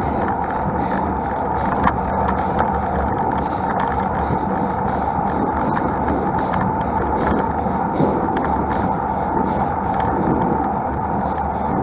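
Steady road and riding noise from a road bike on a hill climb, with scattered short sharp clicks over it.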